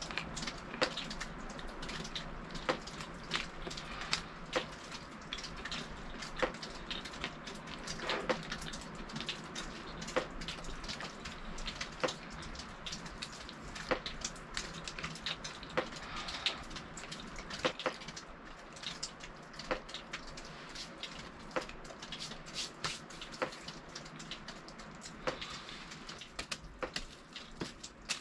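Water dripping, one drop landing about every two seconds with a short plinking ring, and other irregular ticks and clicks in between.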